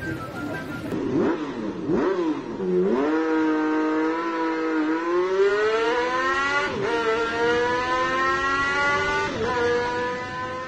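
Car engine accelerating: a few quick revs, then the pitch climbs steadily and drops sharply twice as it shifts up a gear.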